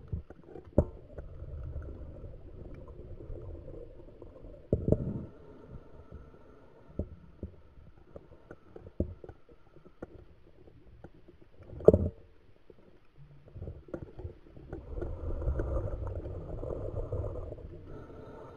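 Underwater, a scuba diver's exhaled bubbles rumbling past the microphone in bursts, the longest lasting a few seconds in the last third. Several sharp clicks and knocks are scattered between them.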